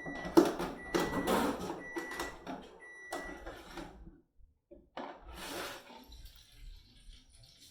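A kitchen appliance's electronic beeper sounds four short beeps, one high tone about a second apart, over clattering of kitchen utensils and dishes. There is another brief burst of clatter about five seconds in.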